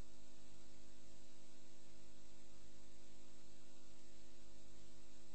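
Steady electrical mains hum with a light buzz, a flat unchanging drone laid over the broadcast's audio.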